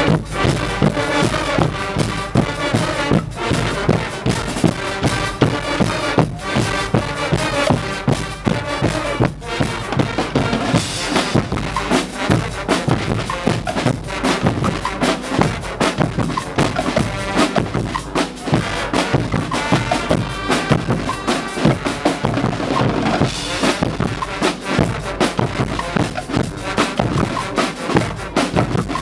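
Guggenmusik carnival band playing: a brass section of sousaphones, trombones and trumpets over snare drums, bass drums and cymbals, with a steady driving beat.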